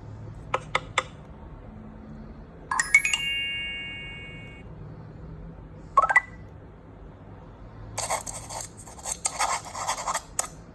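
A run of short Nokia 301 mobile phone tones from its speaker: three quick clicks, a bell-like chime that rings and fades over about two seconds, a brief blip, then a noisy crackling burst about two and a half seconds long near the end.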